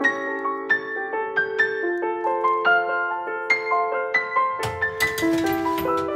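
Background piano music: a gentle melody of single sustained notes. About three-quarters of the way in, a low rumble and soft, evenly spaced noisy hits join it.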